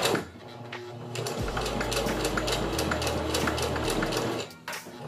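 Electric sewing machine stitching wig combs onto a wig cap, the needle running in a rapid steady rhythm of strokes that stops briefly near the end.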